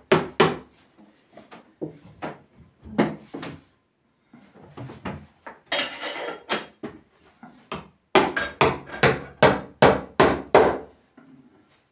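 Hammer blows knocking on a large wooden tree-trunk slab: scattered single and paired strikes, then a quick run of about a dozen blows, roughly four a second, from about eight seconds in.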